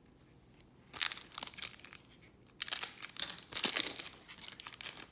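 Trading card pack wrapper being torn open and crinkled in the hands, in three short bursts of crinkling.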